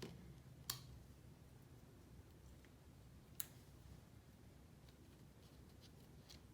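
Near silence: room tone, with two brief, sharp clicks about three seconds apart and a few fainter ticks near the end.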